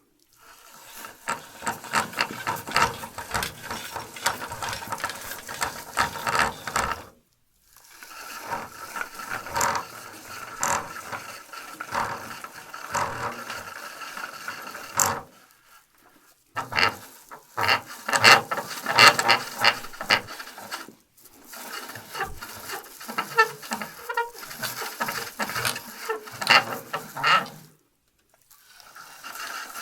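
Small plastic pulley turning, its wheel rattling and clicking rapidly in runs of several seconds with short pauses between them, and a faint steady whirring through each run.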